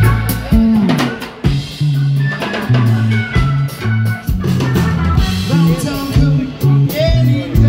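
Live rock band playing: drum kit, electric bass and electric guitars, with a prominent moving bass line under steady drum hits.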